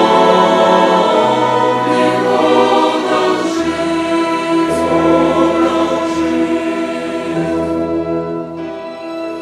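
Chamber choir singing a hymn with a violin orchestra, holding sustained chords, growing quieter toward the end.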